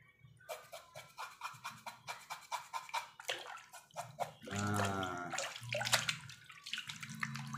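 Water splashing in a bucket as a cow's nose is scrubbed by hand, in quick repeated strokes about five a second. Near the end it is plunged and swished in the water.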